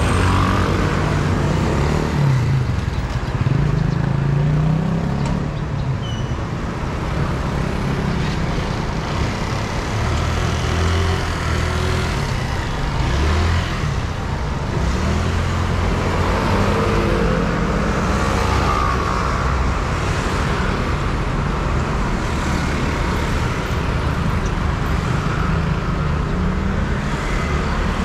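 Busy street traffic: motor vehicles running and passing close by over a steady low engine noise, with a few passing engines rising and falling in pitch.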